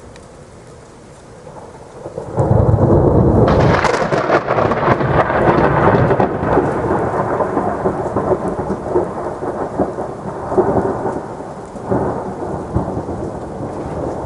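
Thunderstorm: steady rain, then a thunderclap breaks about two seconds in with a sharp crackle and rumbles on, slowly fading with a few swells.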